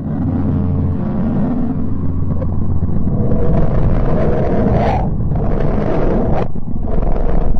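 Low, rough rumbling drone with a hiss over it, the space-sound clip presented as the sound of the planet Mercury, said to come from signals picked up by scientific instruments. It starts abruptly, and the hiss drops out briefly about five and six and a half seconds in.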